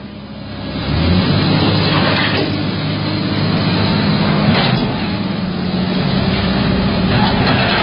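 Excavator's diesel engine running steadily under work. It dips briefly at the start and picks back up about a second in, with a few short swells of noise over it.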